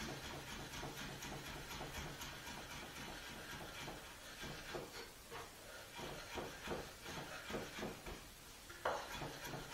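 Chef's knife chopping parsley on a wooden cutting board: a fast, irregular run of light taps, several a second.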